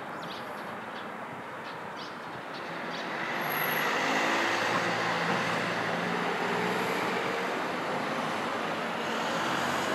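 Steady road traffic noise that swells about three seconds in as a vehicle passes, then holds, with a few faint taps in the first two seconds.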